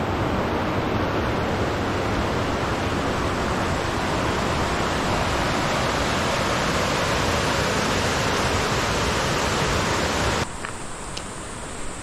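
Mountain stream rushing over rocky rapids: a steady, loud rush of water. About ten seconds in it cuts off abruptly to a much quieter forest background.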